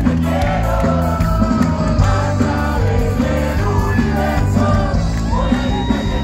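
A live rock band playing loudly over a festival PA, with a lead vocal singing over a heavy bass and drums.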